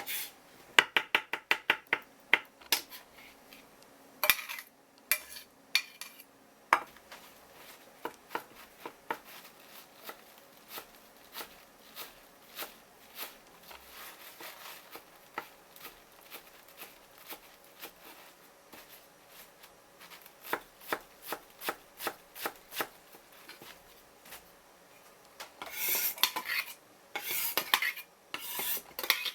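Kitchen knife tapping and cutting on a cutting board. A quick run of strokes comes about a second in, then irregular single strokes, and scraping and clattering near the end.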